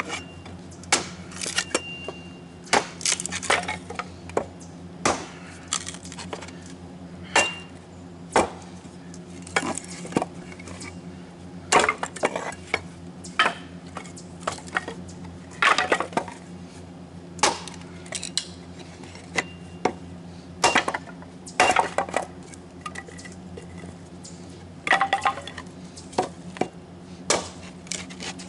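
White oak being chopped into kindling: a string of sharp knocks and cracks of wood splitting, about one a second at an uneven pace, some with a short ringing clink. A steady low hum runs underneath.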